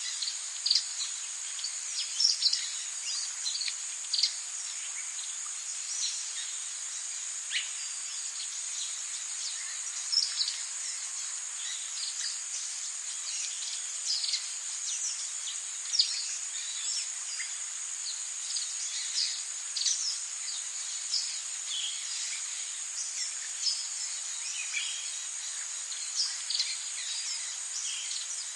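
Tropical rainforest ambience: a steady high-pitched insect drone with many short chirps and calls scattered throughout, from birds.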